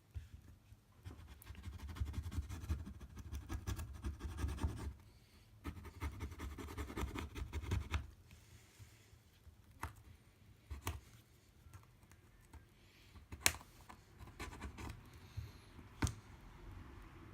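Alcohol swab scrubbed hard over the iPad mini 2's frame, cleaning off old adhesive residue: two stretches of dense scratchy rubbing. Then a few separate sharp clicks or taps, the loudest about two thirds of the way through.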